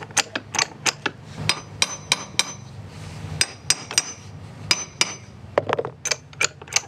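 Hammer tapping a tight-fitting metal rudder gudgeon (rudder shoe) onto a sailboat's skeg: a run of sharp, irregular knocks, about two or three a second, some ringing briefly like metal.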